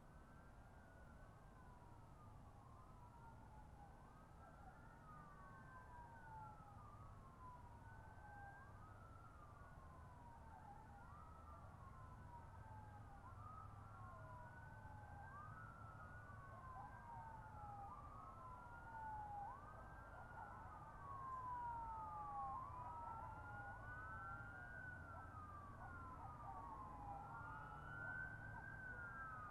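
Police sirens wailing: slow rising-and-falling sweeps every two to three seconds that overlap one another, over a low rumble. The sirens are faint and grow slowly louder.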